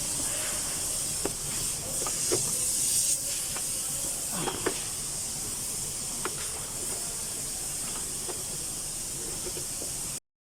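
A steady high hiss with scattered light clicks and knocks from hand tools as a car's fuel pump is being removed. The sound cuts off abruptly just before the end.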